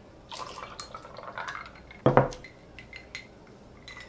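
Freshly brewed coffee poured from a glass carafe into a glass of ice, a short splashing pour, then the carafe set down on the counter with a knock about two seconds in.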